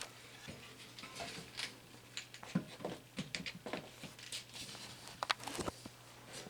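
Scattered clicks, taps and light rustles of an HVAC return-air vent grille and its new filter being handled and pushed back into place, over a faint steady low hum.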